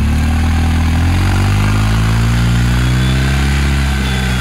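BMW R 1250 GS boxer twin revved while standing still, through a Jekill and Hyde Nomad aftermarket exhaust. The revs climb steadily over the first couple of seconds, hold, then drop back toward idle near the end.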